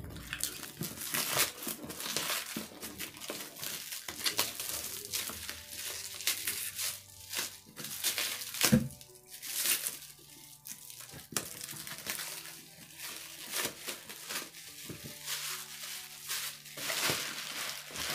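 Plastic wrapping crinkling and crackling in irregular handfuls as it is pulled off a product box, with bubble wrap handled near the end. Soft background music plays underneath.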